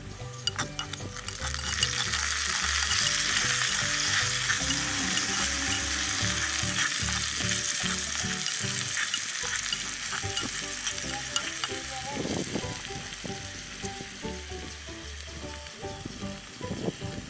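Soy sauce sizzling in hot oil in a miniature clay pot, swelling about a second in and slowly dying down, while a small spoon stirs and scrapes the pot.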